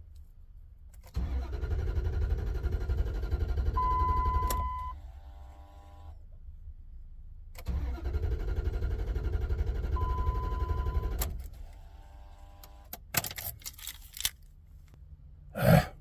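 Dodge Ram pickup's engine cranked twice on the starter, each try lasting about three and a half seconds, turning over without catching. A steady beep sounds near the end of each attempt. The owner takes the no-start for a dead fuel pump. Clicks and a sharp knock follow near the end.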